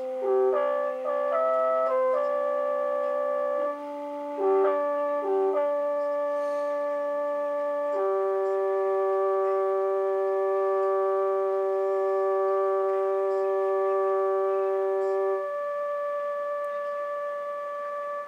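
Music of held, horn-like chords. The notes shift quickly over the first few seconds. A few short notes follow, then one long chord is held, and its lowest note drops out a couple of seconds before the end.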